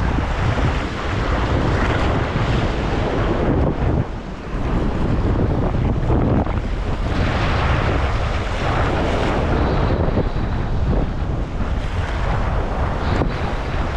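Wind buffeting the microphone with a heavy low rumble, over small waves washing and draining across a rock ledge in swells that come and go every few seconds.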